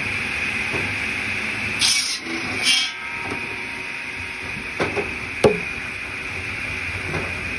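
Large circular saw blade on a wheeled log-cutting cart running with a steady high-pitched hum, biting into a log in two short rasping bursts about two seconds in, then a few sharp knocks about five seconds in.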